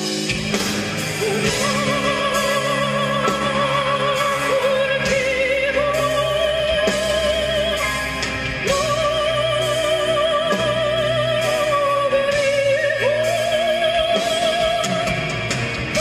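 A male singer singing long, high held notes with a wide vibrato over an instrumental backing.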